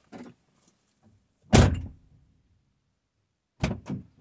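Driver's door of a 2015 Ram 2500 pickup shut with a single loud thunk about a second and a half in. Near the end come two sharp clicks, the door latch releasing as the door is reopened. This is the close-and-reopen step of programming a remote starter module.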